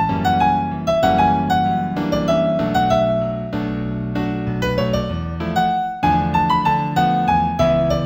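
Solo piano music in A major at about 96 beats a minute: a melody of struck single notes over held chords.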